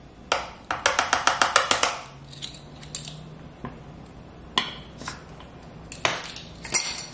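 Light clicks and taps of plastic measuring spoons against a small spice jar: one sharp click, then a quick run of about ten taps lasting about a second, then scattered single clicks as the jar's lid is put back on.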